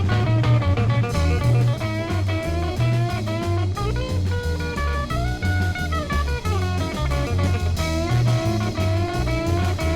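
Instrumental introduction of a Latin swing dance song: guitar and melody lines over a bouncing bass and drum kit, with a steady beat.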